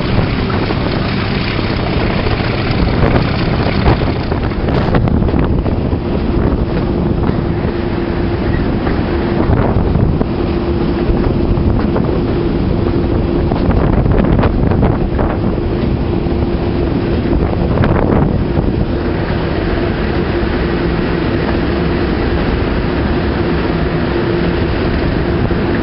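English Electric class 37 diesel locomotive running along the line, its engine working steadily, heard from the cab side window with wind buffeting the microphone. A steady droning tone joins the engine noise about ten seconds in.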